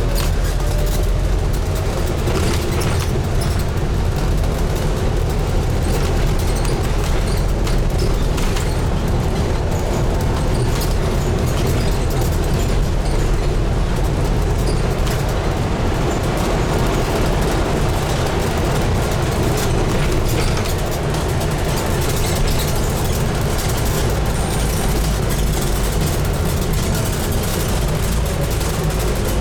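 Inside a Scania N250UD double-decker bus on the move: its diesel engine and the road noise run steadily, with a low rumble and occasional short clicks from the body.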